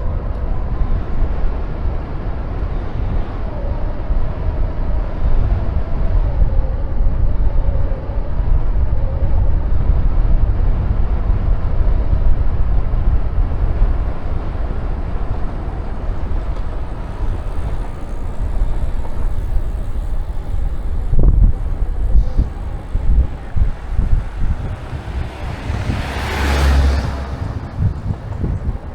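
Wind buffeting the camera microphone on a moving road bike, a heavy low rumble with road and tyre noise under it. Near the end a louder rushing swell rises and fades over about a second, like a vehicle passing.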